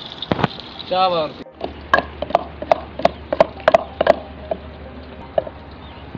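Irregular sharp taps and knocks, a few each second, some with a brief ringing tone, over a low steady hum. About a second in, a short voiced sound comes just before an abrupt break.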